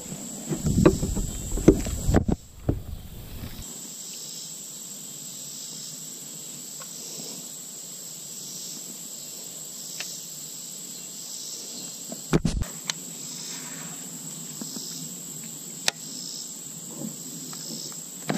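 Summer insects calling in a steady high-pitched drone with a soft pulse about once a second. Handling knocks and rustles come in the first few seconds, and a single thump about two-thirds of the way through.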